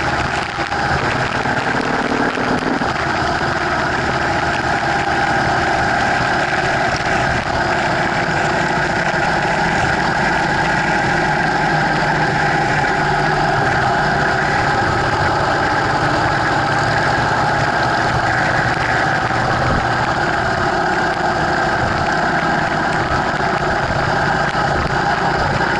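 Motorcycle engine running steadily at freeway speed, heard through a bike-mounted action camera with wind and road noise over it.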